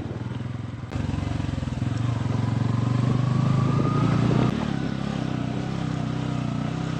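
Motorcycle engine running under way. The revs climb, then drop back about four and a half seconds in.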